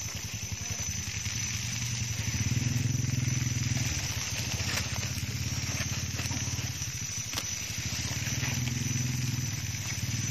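A small engine running steadily, its low pulsing sound swelling louder for a stretch about two seconds in and again near the end, with a few light clicks.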